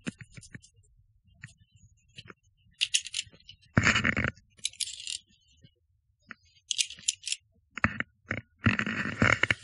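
Via ferrata lanyard carabiners clinking against the steel safety cable and iron rungs as they are unclipped and reclipped at an anchor, in several short bursts of metallic clinks. There is a louder stretch of scraping about four seconds in and again near the end.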